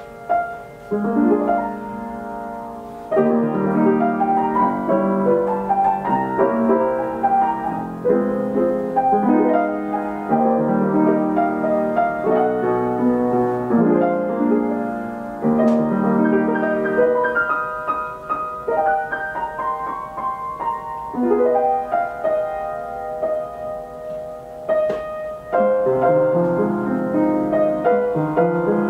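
Steinway Model S baby grand with an Ampico B reproducing mechanism playing a piano roll by itself, picked up with the room's own acoustics. The music is a slow popular song in full chords.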